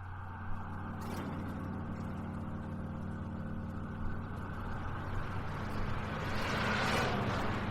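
Instrumental intro of a track: a steady low droning bass hum under a haze of noise that swells and peaks about seven seconds in.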